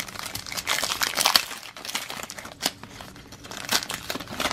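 Plastic wrapper of a 2009 Upper Deck baseball card pack crinkling as it is torn open and the cards pulled out: a dense crinkle for the first second and a half, then lighter, scattered crinkles.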